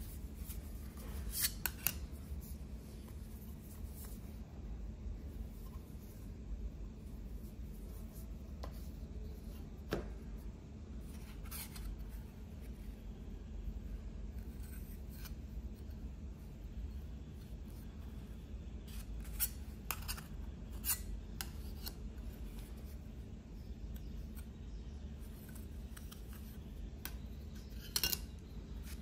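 Thin metal cards clicking and scraping against one another as gloved hands pick them up and handle them: scattered light ticks several seconds apart, over a low steady hum.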